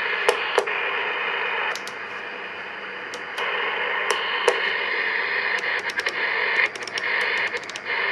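Steady static hiss from a Uniden AM/SSB mobile CB's speaker, with sharp clicks scattered through it. It drops briefly after about two seconds. A fast run of clicks and pops near the end comes as the rotary channel selector is stepped up through the channels.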